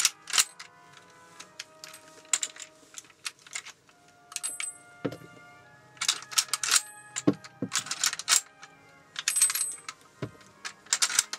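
Metallic clicks and clinks of 7.92 mm rifle cartridges and stripper clips being handled against a bolt-action Mauser rifle. Sharp, irregular clicks come in clusters, some with a short high ring, busiest in the second half.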